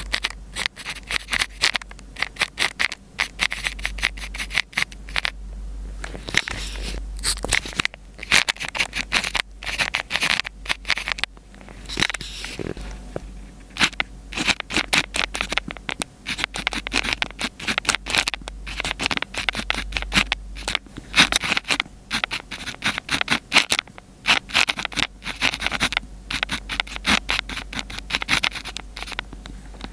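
Pen nib scratching across paper while Chinese characters are handwritten: quick clusters of short scratchy strokes with brief pauses between characters.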